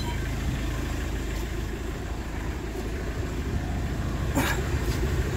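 Iveco Daily van's engine idling steadily, with a brief scuffing sound about four seconds in.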